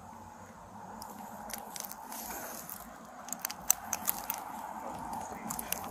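Clothing rustling and scraping against a chest-worn body camera's microphone, with scattered light clicks and taps.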